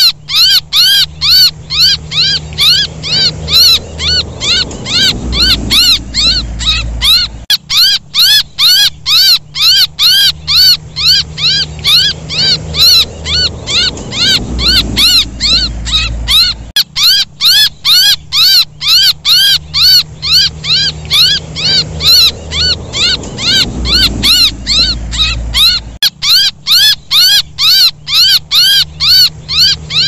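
Recorded distress calls of a baby bird crying for its mother, a fast run of short, high-pitched squeaks about three a second, played as a bird-lure call. The recording loops, breaking off and restarting about every nine seconds, with a low hum under it.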